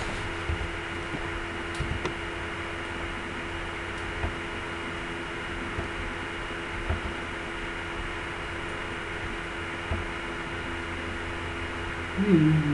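Steady background hum and hiss, with a few faint clicks scattered through.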